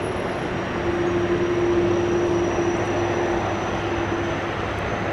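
Aircraft engines running, a steady drone with a low hum and a held mid-pitched tone.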